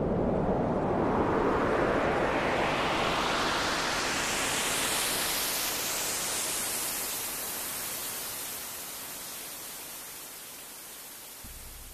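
A white-noise sweep rising steadily in pitch over about seven seconds and slowly fading, a riser effect in a hip-hop track's intro. A low steady bass tone comes in just before the end.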